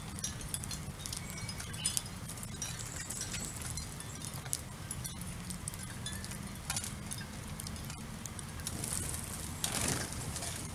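House sparrows pecking at scattered seed on pavement: many sharp little ticks and clicks with a few short high chirps. Near the end comes a brief rush of wings as the flock flies up together. A steady low hum runs underneath.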